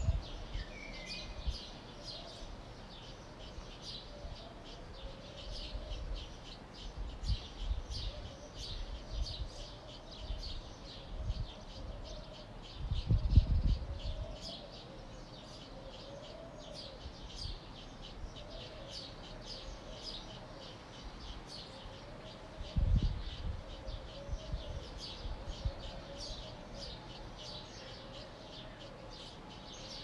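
Many small birds chirping, a dense stream of short high calls. Low rumbles on the microphone come twice, near the middle and about three-quarters through.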